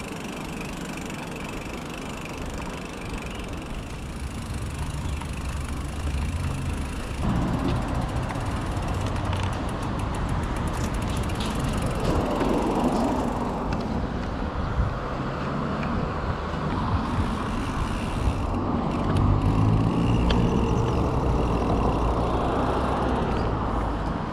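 Steady outdoor rumble and hiss of road traffic heard from a mountain bike being ridden, getting louder about seven seconds in.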